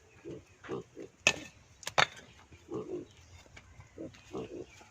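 Short low grunting calls repeated every half second or so, with two sharp knocks, a little over a second in and again about two seconds in.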